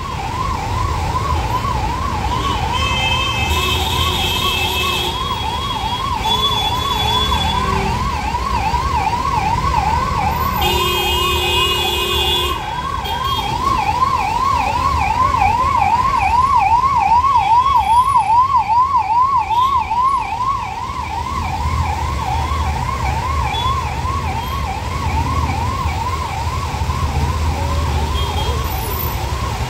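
An emergency vehicle siren sounding a fast yelp that rises and falls about three times a second without a break, over the low rumble of traffic wading through floodwater. Vehicle horns blare about three seconds in and again about ten seconds in.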